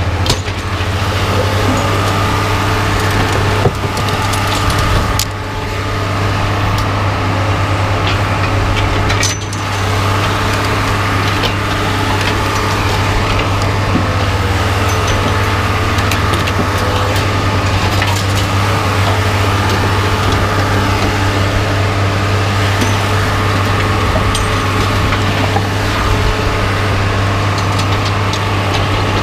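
An engine running steadily with a constant low hum, and a few sharp knocks of metal in the first ten seconds.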